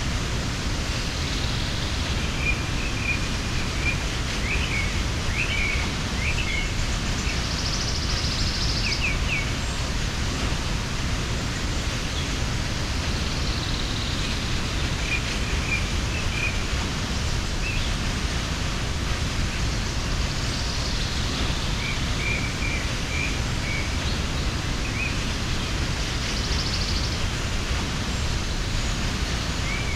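Steady rush of a waterfall, with small birds chirping in short clusters now and then over it.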